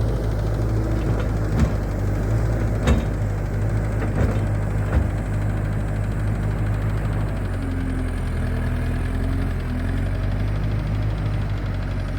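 New Holland L218 skid steer's diesel engine running steadily under work, with four sharp metallic knocks in the first five seconds.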